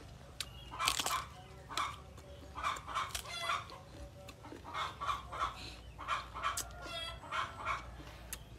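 Chickens clucking in short, repeated calls throughout. About a second in comes a crisp crunch as a firm unripe green mango is bitten, then chewing.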